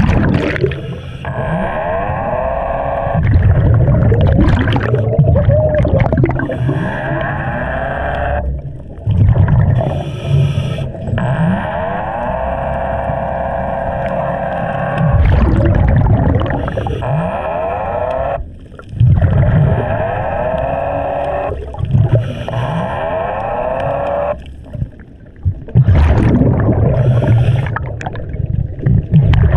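An underwater propulsion device's motor whining underwater, its pitch sliding up and down as it speeds up and slows, over a low churning rumble of stirred water. It cuts out briefly three times.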